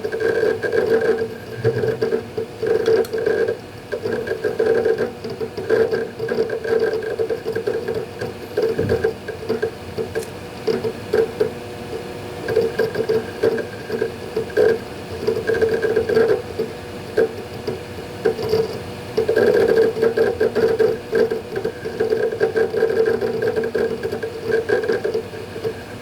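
Western Digital Ultrastar hard drives in a Synology DS220+ NAS working through a Hyper Backup: irregular bursts of head-seek chatter over a steady whir.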